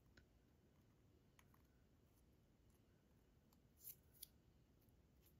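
Near silence, with faint light ticks of small cardstock pieces being handled between the fingers; two slightly louder ticks come about four seconds in.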